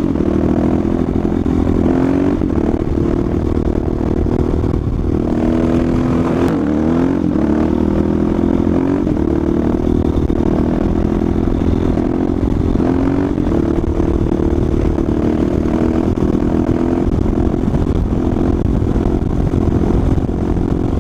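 Motorcycle engine held at a steady throttle through a long wheelie, the revs climbing briefly about six seconds in and shifting again around thirteen seconds, with wind rushing over the microphone.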